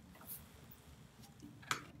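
Faint handling noises of a hand working a shop rag and a rubber fuel line against a motorcycle frame under the fuel tank: a soft tap just after the start and one sharp click near the end.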